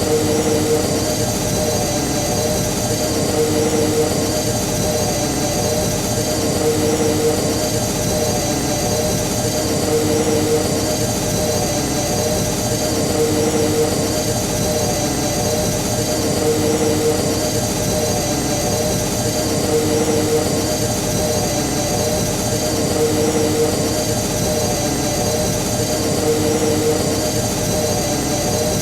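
Star Wars Jedi starfighter interior engine noise, a film sound effect: a steady cockpit engine hum with a low throb that swells about every three seconds, looped.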